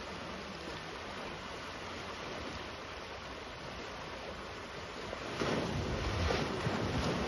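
African elephant bull splashing heavily in a waterhole: after a steady hiss, about five seconds in, loud sloshing and churning water starts and runs on to the end.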